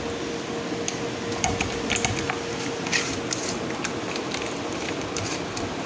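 Fingers mixing a thick, wet yogurt-and-spice masala paste in a steel bowl: soft squishing with scattered light clicks and ticks against the metal.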